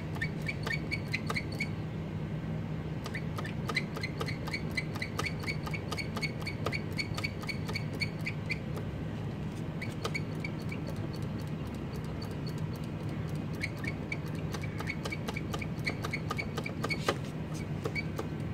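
A small bird chirping in quick runs of short, repeated high notes, several bursts with pauses between, over a steady low hum.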